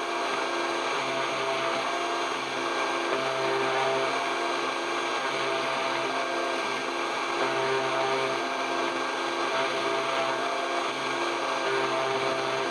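Spindle of a CNC mill engraving a copper-clad circuit board with a V-shaped engraving bit: a steady high whine and cutting hiss, with a lower humming tone that switches on and off every second or so as the machine moves.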